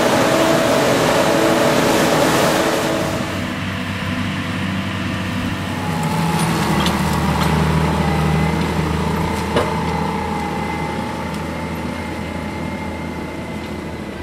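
CLAAS forage harvester running under load, its dense rush of chopped maize blowing into a silage trailer over the engine. After a few seconds this gives way to the steady engine of a tractor pulling the loaded trailer away, with a faint whine and a single sharp click partway through.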